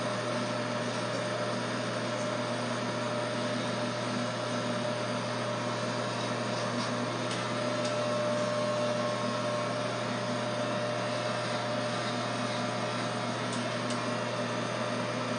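Corded electric hair clippers running with a steady buzzing hum as they cut hair close to the scalp.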